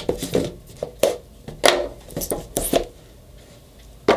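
A cardboard product box being opened by hand: the lid pulled up and slid off, with a series of short scrapes and knocks of cardboard.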